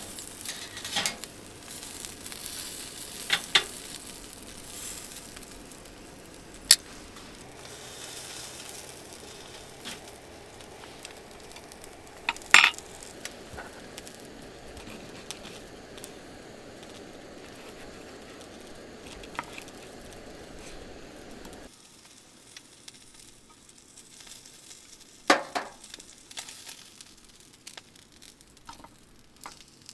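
Lamb chops sizzling on the wire mesh grate of a charcoal grill, with several sharp metal clinks from tongs against the grate. The sizzle stops abruptly about two-thirds of the way through, leaving only a few scattered clinks and knocks.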